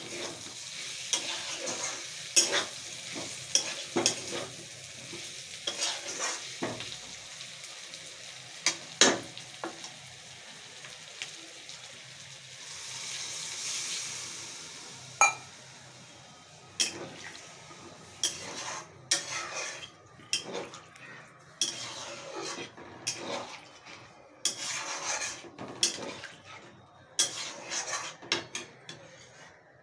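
Metal spatula scraping and clinking against a steel kadhai as potatoes and drumsticks fry with a sizzle. About thirteen seconds in, water is poured into the pan in a brief rush; the sizzle dies down, and the spatula goes on scraping through the watery curry.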